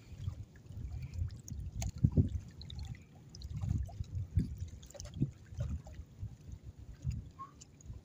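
Breeze buffeting the microphone in uneven low gusts, with a few faint small ticks.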